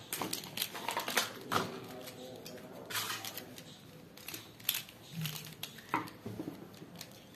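Plastic 3x3 bubble puzzle cube being turned by hand: irregular clicks and clacks of its layers rotating, with a few sharper snaps.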